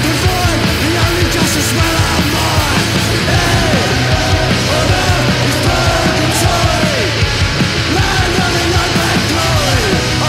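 Loud punk rock music with shouted vocals.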